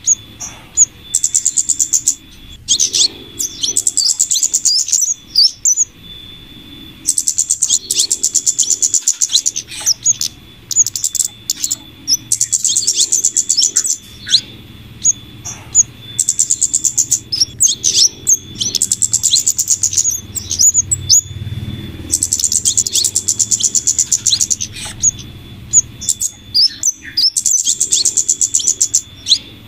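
Bird-lure recording of flowerpecker calls mixed with female scarlet minivet calls: very high, fast trills of about two seconds, repeated many times, alternating with short sharp downward chips. A steady faint high tone runs underneath.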